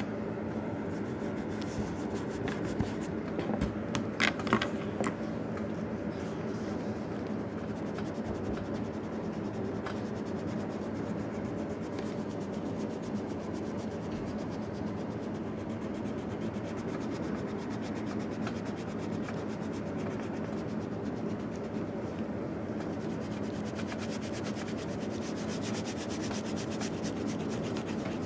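An orange colouring stick rubbing back and forth on paper as an area is shaded in, a steady rustle of quick strokes. A few louder taps come around four seconds in.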